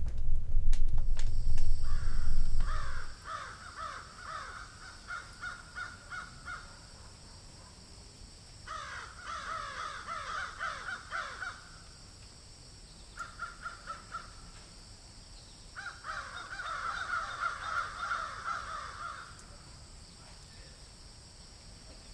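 A bird calling in four bursts of rapid, chattering notes, each burst lasting between one and about three and a half seconds. A low rumble covers the first three seconds, and a steady high hiss runs behind the calls.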